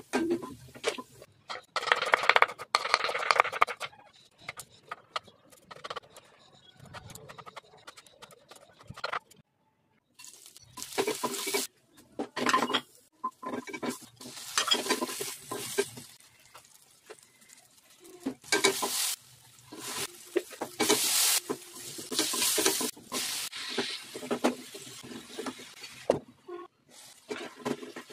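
Food frying in a nonstick pan while a spatula stirs and scrapes it in repeated bursts, with sizzling underneath; there is a brief silent break about ten seconds in.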